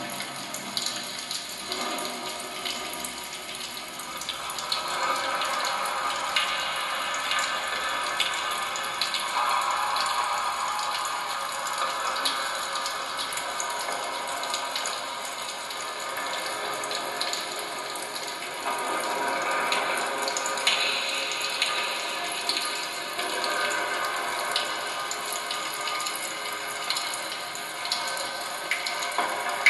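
Experimental ambient sound piece made with popping candy, a knife, a drinking straw and modified kitchen utensils: a dense crackling texture full of tiny clicks, with a hissing wash that swells and fades several times.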